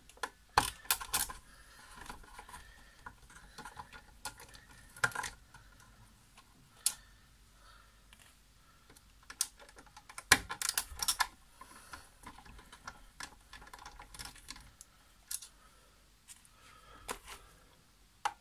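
Irregular sharp clicks and taps of a hand screwdriver with a T10 Torx bit working screws out of the plastic frame of a Nespresso coffee machine's brewing mechanism, the strongest a couple of seconds apart with quieter ticks between.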